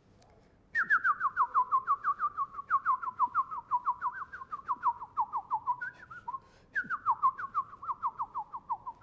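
Bird-like whistling: two runs of quick, short, downward-slurred whistle notes, about five a second, each run gradually sinking in pitch. The first run starts about a second in; the second begins shortly before the end.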